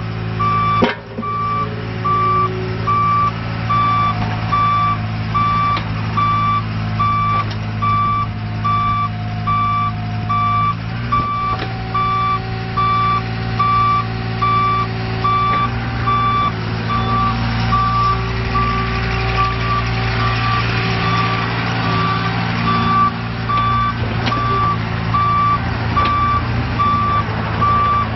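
2004 IHI 35N mini excavator's Isuzu diesel engine running, with its travel alarm giving steady, evenly spaced beeps. Other machine tones underneath shift in pitch now and then.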